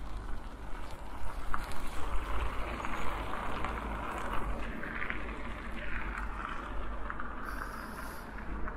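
Riding a bicycle outdoors: steady wind noise on the microphone over the hiss of tyres on the road, with a few louder gusts in the first few seconds.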